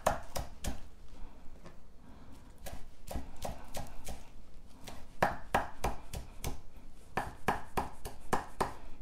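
Kitchen knife chopping chives on a wooden cutting board: a steady run of blade taps on the board, about three a second, softer for the first few seconds and louder in the second half.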